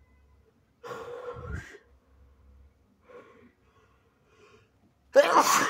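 A person takes a gasping, voiced breath about a second in, then sneezes once, loudly and sharply, near the end; the sneeze is induced and comes with sinusitis.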